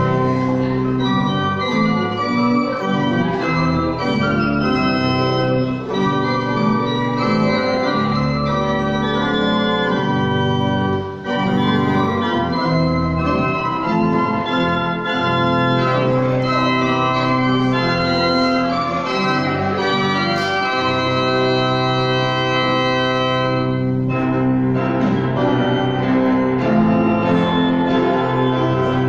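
Church pipe organ playing a slow piece in held chords, with a short break between phrases about eleven seconds in.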